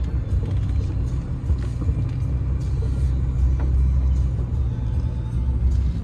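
Truck driving slowly: a steady low engine and road rumble.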